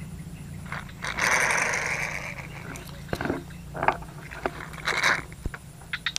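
Rustling and scraping from someone moving through bankside ferns and grass. There is a longer rushing scrape about a second in, then several short rustles.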